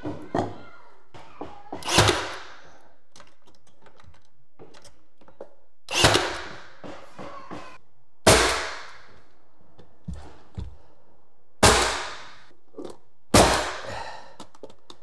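Pneumatic nail gun firing five times, a few seconds apart, each shot sharp with a short fading tail, driving nails through a pine board. Faint taps and knocks of the board and tool being positioned come between the shots.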